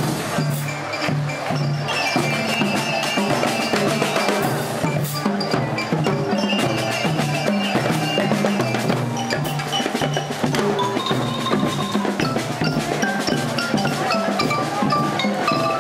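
Marching show band playing in the street: snare and bass drums keeping a steady beat under a melody on marching bell lyres.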